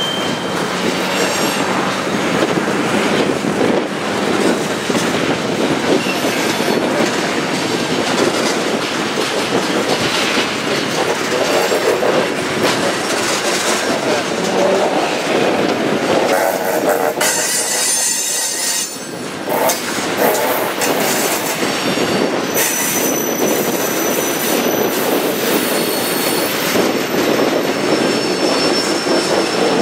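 Freight train of tank cars rolling past, with steady wheel-on-rail rumble and rhythmic clatter over the rail joints. High-pitched wheel squeals come in during the second half.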